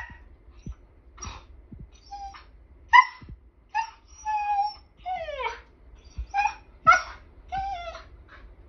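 Young Siberian husky "talking": a string of about ten short, high whiny yips and woo calls. One call near the middle is held longer, and the next slides down in pitch.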